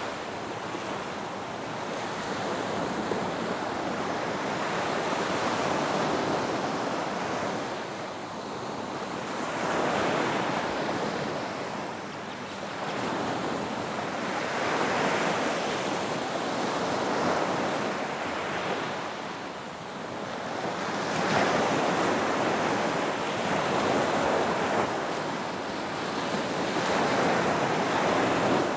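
Ocean surf breaking and washing up a beach, a steady rushing that swells and fades as each wave comes in, every few seconds.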